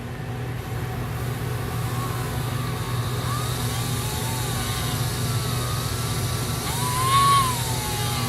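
Motor-driven graver sharpening wheel running with a steady hum while the steel graver's tip is ground against it. A growing hiss and wavering squeals come from the contact, the loudest squeal rising and falling about seven seconds in.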